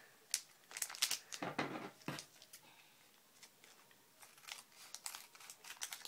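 Wrapper of a Gundam War trading-card booster pack crinkling and tearing as it is opened by hand: quick crackles through the first two seconds, a lull, then more crinkling near the end.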